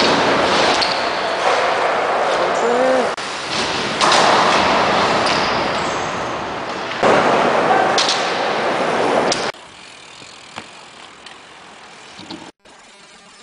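BMX riding on skatepark ramps: a loud, even noise of tyres rolling, with thuds of landings and people's voices. The sound changes abruptly several times and turns much quieter about nine and a half seconds in.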